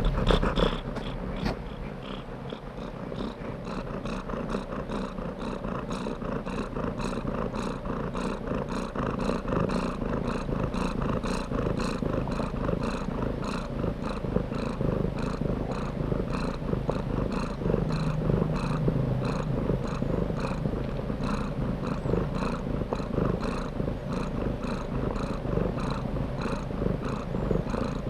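Domestic cat purring steadily, in an even pulsing rhythm.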